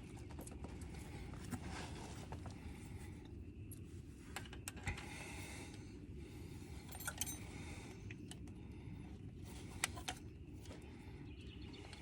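Scattered light metallic clicks and clinks of bolts and hand tools being handled while bolts are lined up and threaded by hand, over a steady low background rumble.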